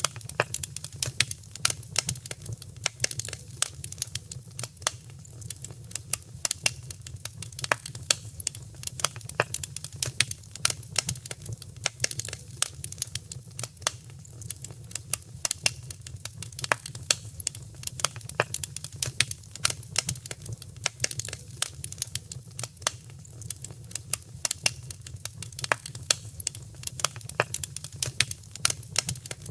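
Wood fire crackling in a fireplace: a dense, irregular run of sharp pops and snaps over a steady low rumble.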